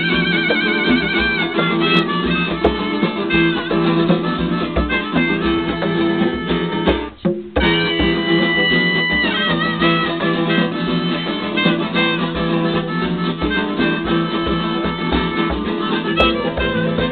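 Live acoustic guitar, transverse flute and hand drum playing a tune together, the flute holding long notes with vibrato over steady drum beats. The music drops out for a moment about seven seconds in.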